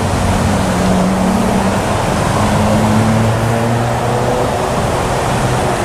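Steady rushing of a pond fountain's spray, with a low engine hum that shifts slightly in pitch over it.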